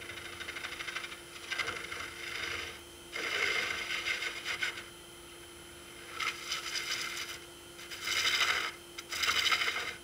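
Something scraping against a spinning burl wood piece on a wood lathe, in about six short passes of one to two seconds with brief pauses between. Under it runs a steady hum.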